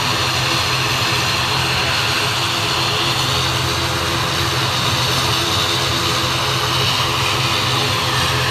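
ATR 72 twin-turboprop airliner taxiing with its engines and propellers running, a steady drone: a low hum under a broad hiss.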